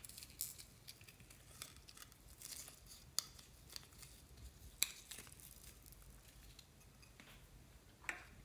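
Faint crinkling and clicking of a thin clear plastic mould being handled and peeled off a small heart-shaped piece, with a few sharper clicks spaced through it.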